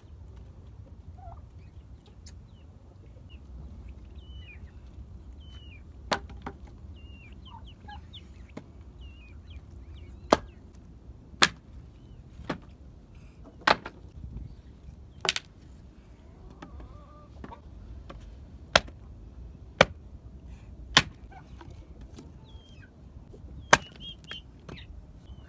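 A short-handled adze chopping dry wooden boards into kindling: about ten sharp chops at uneven intervals, starting about six seconds in. Faint bird chirps sound in the first part.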